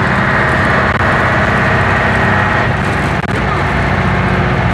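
Leyland double-decker bus's diesel engine running under way, heard from inside the bus: a steady low drone with a higher whine that drops away a little over halfway through.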